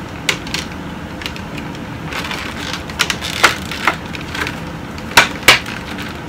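Clear plastic packaging insert of a Funko Pop crinkling and clicking as the vinyl figure is handled in it, with irregular sharp cracks, the loudest about three and a half seconds and a little over five seconds in.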